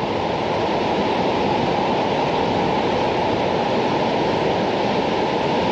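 Shoshone Falls on the Snake River: the steady rushing of a large waterfall, an even, unbroken noise.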